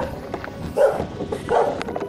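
A dog barking three times, about three-quarters of a second apart, over steady background noise.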